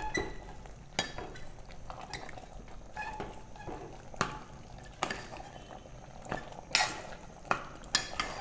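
Metal ladle stirring a wet liver-and-masala curry in a pressure cooker, knocking and scraping against the pot's inside with irregular clinks, some ringing briefly.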